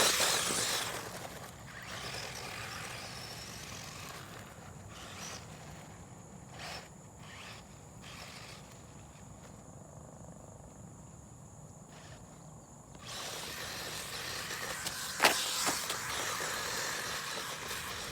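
Traxxas 1/16 Slash electric RC truck driving in spurts over rough dirt ground, its motor running and its tyres rustling. There is a loud burst right at the start, then a quieter stretch, then a longer run in the last five seconds with one sharp knock partway through.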